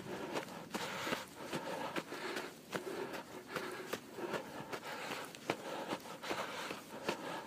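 A runner's footsteps in snow, a regular crunch about two to three times a second.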